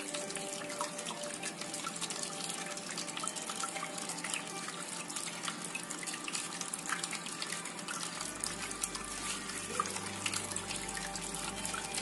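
Water from a homemade cement tabletop waterfall fountain spilling from small pipe spouts and splashing into the cement bowls below: a steady trickle full of small drips and splashes.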